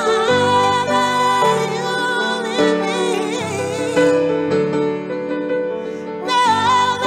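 A woman singing long, wavering held notes over piano chords, with a softer stretch just past the middle before the voice comes back strongly near the end.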